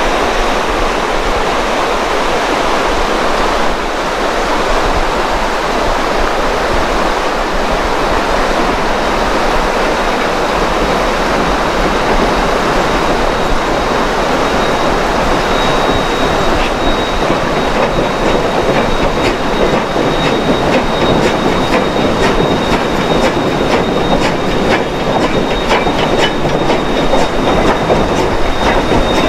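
Durango & Silverton narrow-gauge steam train crossing a steel truss bridge, heard over a steady rushing noise. About halfway through, quick irregular clicks of the wheels over the rail joints and a thin, steady high squeal join in.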